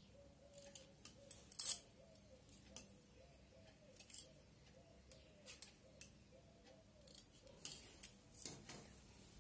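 Tailor's scissors snipping through blouse fabric in a series of separate short snips, the loudest about one and a half seconds in. The scissors are clipping small notches into the seam allowance before the piece is turned right side out.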